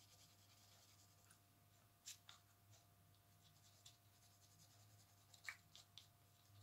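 Faint scratching of a black felt-tip marker drawing short strokes on paper, several brief strokes over near silence.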